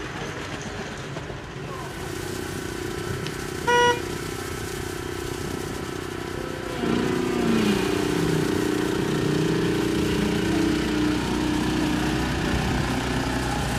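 A short horn toot about four seconds in, then the small ride-on rail cart's motor runs louder from about seven seconds in as the cart pulls away along the track, its pitch rising and falling.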